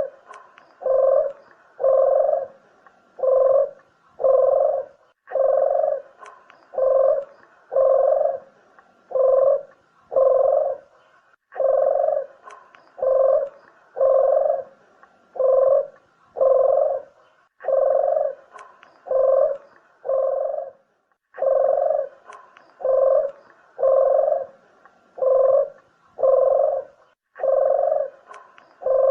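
Puter dove (turtle dove) cooing over and over: short, low coos roughly once a second, in runs of several notes with brief pauses between runs. This is the call used to lure the birds in for netting or shooting.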